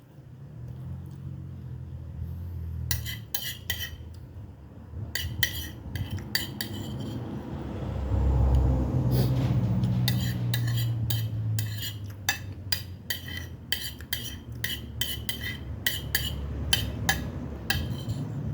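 Metal spoon and fork clinking and scraping against plates and bowls while eating, in many irregular taps over a low rumbling background.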